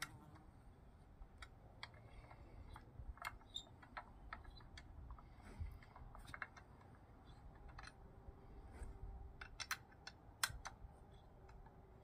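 Faint, scattered clicks and light plastic knocks of a new Milwaukee 9-inch angle grinder being handled and unpacked, with a sharper click about ten seconds in.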